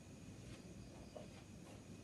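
Near silence: room tone with a faint low hiss.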